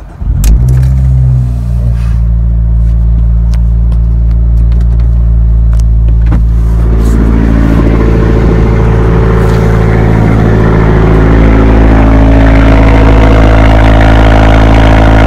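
A 2016 Fiat 500 Abarth's 1.4-litre turbocharged four-cylinder engine cranks and starts, flaring briefly before settling to a steady idle. From about six seconds in it grows louder and fuller as the microphone nears the twin exhaust tips.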